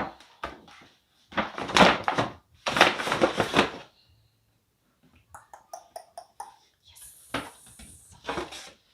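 Luxury-purse packaging being handled: two loud bursts of paper and box rustling, then scattered light clicks and knocks, and more rustling near the end.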